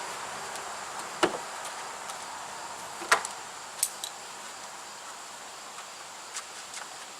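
A few sharp knocks and clicks, the loudest two about a second and three seconds in, over a steady background rush that fades over the first few seconds and a thin, steady high tone.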